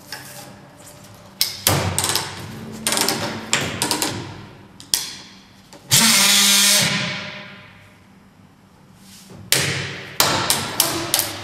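Orgapack OR-T 50 battery-powered plastic strapping tool: a run of sharp clacks and ratchet clicks as the hand lever tensions the strap. About six seconds in comes a loud burst from the automatic sealing unit welding the strap; it holds for about a second and then fades away. Near the end, a second cluster of clacks as the lever is swung back.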